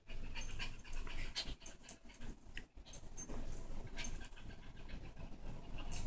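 Small Yorkshire terrier panting with quick, repeated breaths while humping a blanket.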